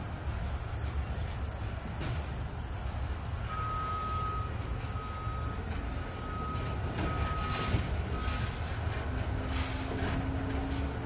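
A cut of covered hopper cars shoved slowly by a locomotive, with a steady low rumble and a few clicks from the wheels on the rails. A string of five electronic beeps sounds from about three to eight seconds in, and a low hum begins near the end.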